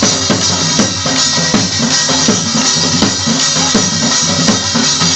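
Loud dance music driven by a fast, steady drum beat, about three strokes a second, with deep bass-drum hits under a dense band backing; Marwari dandiya dance music.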